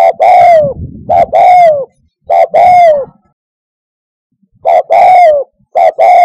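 Spotted dove cooing loudly and close: repeated two-part calls of a short note followed by a longer note that falls at its end, three in a row, then after a pause of about a second and a half, two more.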